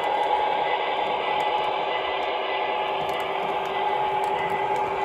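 K-Line O-gauge Santa Fe F3 model diesel locomotives running along three-rail track: a steady mechanical hum with several held tones and faint light ticks.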